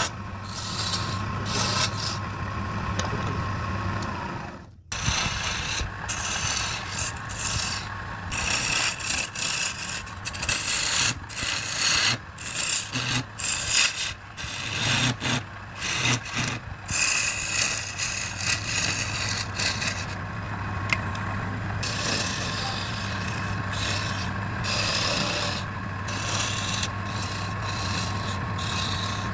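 Wood being worked with a hand tool: uneven, repeated rubbing and scraping strokes over a steady low hum, with a brief break about five seconds in.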